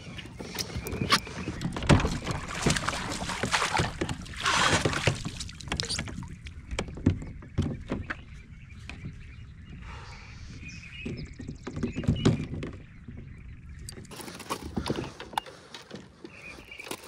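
Knocks, bumps and rattles against a kayak hull with bursts of water splashing, as a freshly caught bass is handled aboard.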